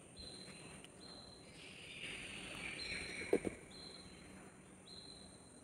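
Soft rustle of a paper banknote being pushed through the slot of a donation box, then a single short knock about three seconds in. A faint high chirp repeats about once a second.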